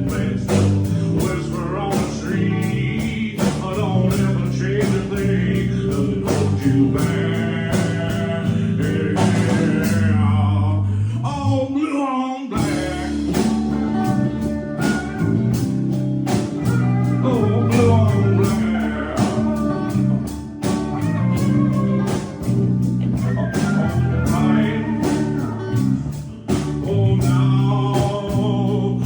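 A band playing live at rehearsal: male singing over guitar, with a steady beat and a bass line. The low end drops out for a moment about twelve seconds in, then the song carries on.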